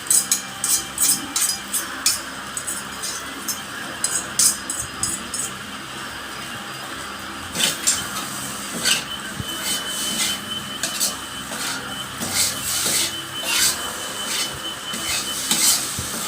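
Spatula scraping and knocking against a pan as fried noodles are stir-fried, with a steady hiss beneath. Quick strokes run for about five seconds, ease off briefly, then resume as scraping and knocks.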